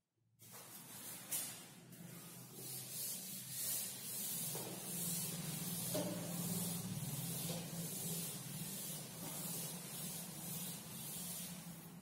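Board duster wiping chalk off a blackboard in rhythmic back-and-forth strokes, a rubbing hiss at about two strokes a second.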